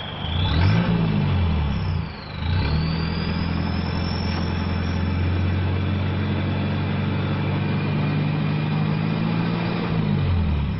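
Toyota Hilux Vigo turbodiesel blipped twice, then held at raised revs for several seconds before dropping back near the end. Over the engine, its stock turbo gives a high whistle that glides up as it spools; the whistle has been deliberately tuned for a sweet sound.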